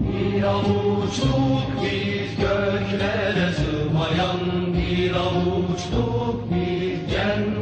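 Devotional vocal music: voices chanting without words over sustained tones, leading into a Turkish ilahi (nasheed).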